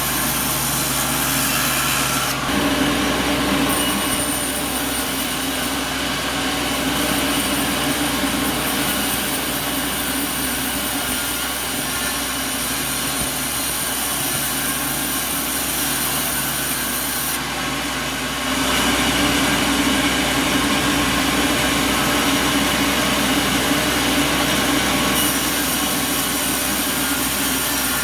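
Sawmill saw running and cutting wood, over a steady engine. The sound shifts about two seconds in and again around eighteen seconds in.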